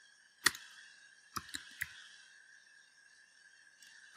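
Computer keyboard keys clicking: a single keystroke about half a second in, then a quick run of three or four keystrokes about a second later, over faint steady background noise.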